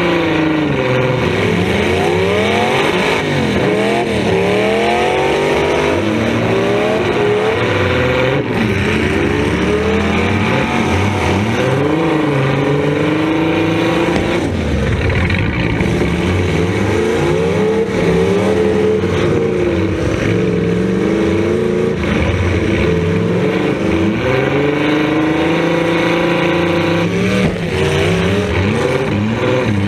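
Demolition derby car's engine revving hard and dropping back over and over, heard from inside the stripped-out cab, its pitch rising and falling every couple of seconds.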